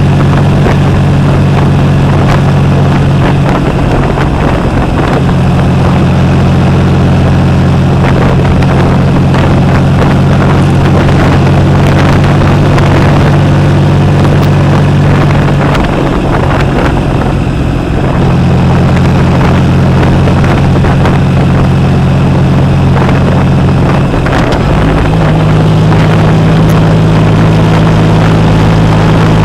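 Triumph Rocket 3 Roadster's three-cylinder engine running loud through its Jardine aftermarket exhaust while the bike is ridden, with a steady engine note. The engine's pitch changes about four seconds in. It drops as the throttle eases off around two-thirds of the way through, then picks up again and steps higher near the end.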